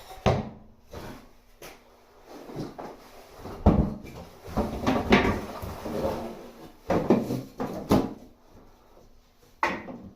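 Irregular wooden knocks and clatter with rustling between them, as of timber and fittings being handled and set down.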